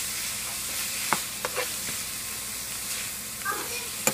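Ground turkey sizzling steadily in a frying pan as it is stirred, with a few sharp clicks of the utensil against the pan.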